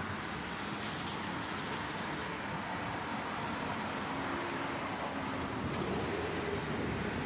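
Steady street traffic noise from a small-town main street, with a faint engine hum from a passing vehicle in the second half.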